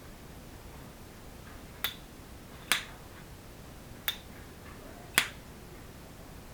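Four sharp clicks from a Barrel Industries switchblade's coil-spring blade action as the blade is worked.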